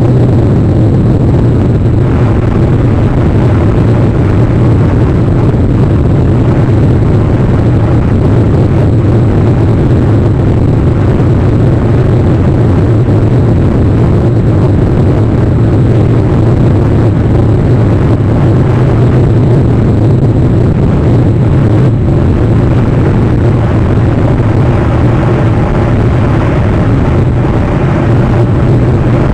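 Steady, unchanging loud noise with a low rumble and a hiss above it, with no distinct events.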